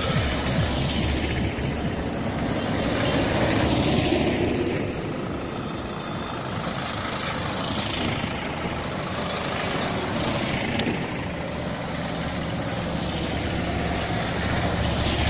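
A convoy of small mini-truck campaign vans driving past one after another, their engines and tyres on the road swelling and fading as each goes by.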